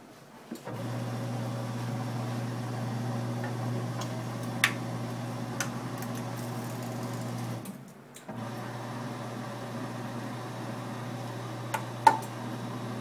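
Electric motor of a hard-drive hole-punch destroyer running with a steady hum as it drives the punch through the drive. It stops for about half a second partway and then runs again, with a few sharp clicks, the loudest near the end.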